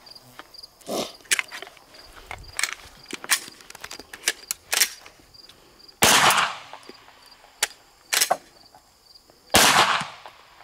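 Glock 17 Gen 3 9mm pistol fouled with muddy creek water, with a malfunction being cleared: a run of sharp metallic clicks and slide clacks, then two shots about three and a half seconds apart, each ringing out.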